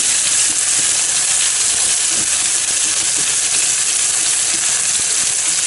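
Pork pieces frying in a small nonstick frying pan: a steady, high sizzle, stirred with a silicone spatula.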